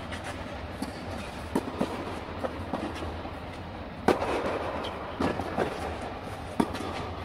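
Tennis rally on a clay court: a string of sharp racket-on-ball hits and ball bounces, echoing under the fabric dome. The loudest strike, about four seconds in, is an overhead smash. A steady low hum runs underneath.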